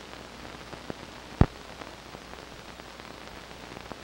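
Hiss and crackle of an old film soundtrack, with scattered faint clicks and one sharp pop about a second and a half in.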